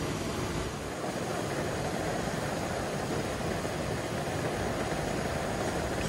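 Canister-gas camping stove burner running steadily under a stainless-steel coffee percolator, giving an even rushing noise.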